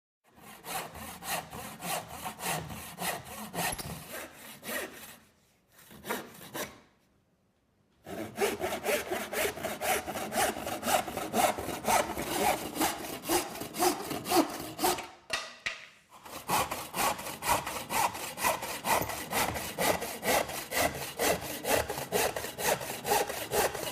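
Roughneck hardpoint toolbox handsaw cutting with quick, even back-and-forth strokes, in three runs separated by short pauses about five, seven and fifteen seconds in.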